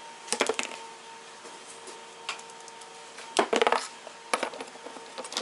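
Small steel engine parts, the cam caps and lifters from a 12-valve VR6 cylinder head, clinking against each other as they are handled and set into a cardboard box. The clinks come in short clusters, the loudest about half a second in and about three and a half seconds in.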